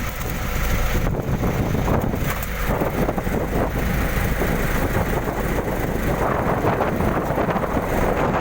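Small fishing boat running through rough sea, with a steady mix of engine, wind and water noise and wind buffeting the microphone.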